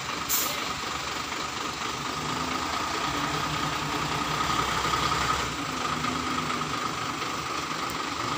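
Isuzu dump truck's diesel engine running steadily, with a constant whine over it; the engine note grows stronger for about three seconds in the middle. A brief hiss just after the start.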